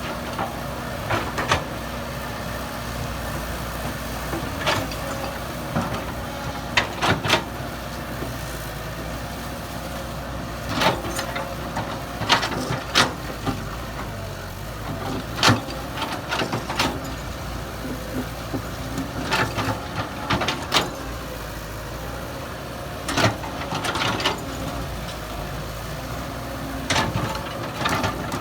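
Heavy diesel machinery engine running steadily, with irregular sharp knocks and clanks over it, a few every couple of seconds.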